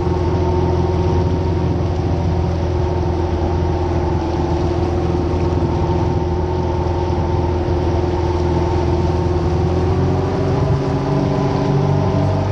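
Jet ski engine running steadily at low speed, with water spraying off the hull; the engine note rises slightly about ten seconds in.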